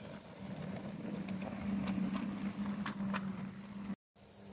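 Battery-electric miniature locomotive running past: a steady low motor and gear hum with sharp clicks from the wheels over the rail joints, a few in a row. The sound drops out for a moment near the end and comes back as a fainter hum.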